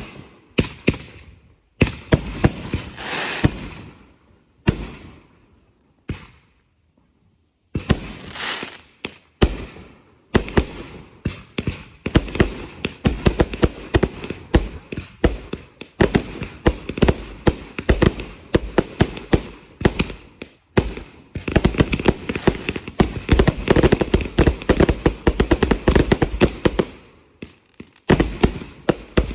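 Fireworks going off: a few separate bangs with hissing tails, then from about ten seconds in a dense barrage of rapid crackling and popping that thins out near the end.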